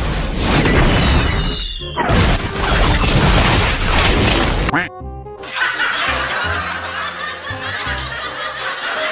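A loud, noisy sound effect lasting about five seconds, with a falling whistle-like glide early on, followed by background music.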